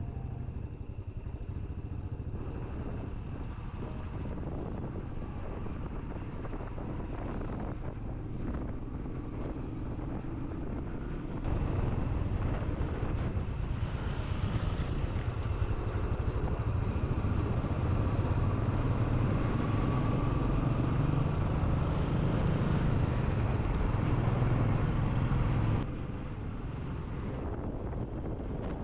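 Motorcycle engine running on the move. The sound steps up abruptly to a louder level about a third of the way in and drops back sharply near the end.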